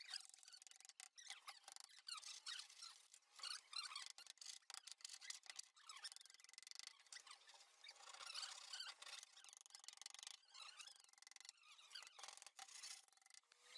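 Faint, light taps of a small hammer on thin wooden lattice strips being set into a door panel, with squeaks of the wood rubbing as the strips are pressed into place.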